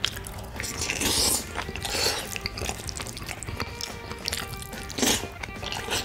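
Close-miked sounds of a person eating a spoonful of rice with spicy pork and mayo: chewing and mouth sounds, louder for brief moments about one, two and five seconds in. Soft background music plays underneath.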